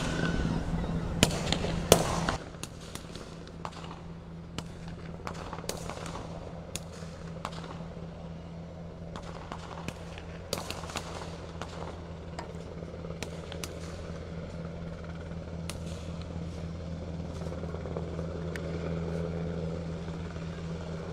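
UH-60 Black Hawk helicopter flying low overhead: a steady low rotor drone with scattered sharp cracks, growing a little louder near the end. For the first two seconds a louder rushing noise covers it, then stops suddenly.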